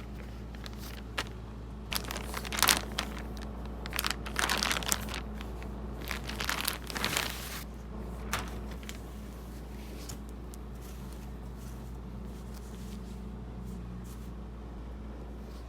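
Packaging crinkling and rustling in a series of short bursts as it is handled and opened, dying away after about eight seconds, over a steady low hum.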